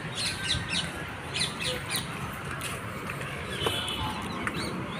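Several birds calling in short, quick, high chirps, thickest in the first two seconds or so and sparser after, over a steady low rumble.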